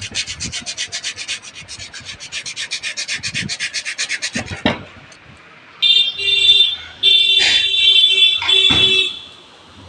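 Fast, even scraping strokes, about nine a second for four and a half seconds, as corrosion is scraped off the corroded winding connections of a cooler's exhaust fan motor. The corrosion is why the motor has lost speed. About six seconds in, a shrill tone comes and goes for some three seconds.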